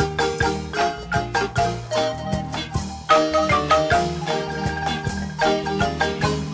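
Marimba playing a Chiapas folk dance tune: quick runs and chords of struck wooden bars over a steady low bass line.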